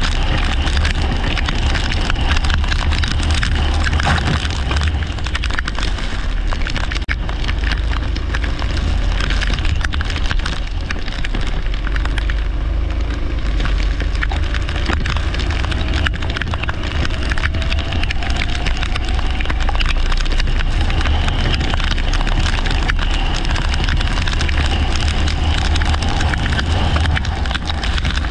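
Onboard sound of a leisure kart racing on a wet track: heavy wind buffeting and a constant crackling rattle over the engine, whose note rises slowly partway through.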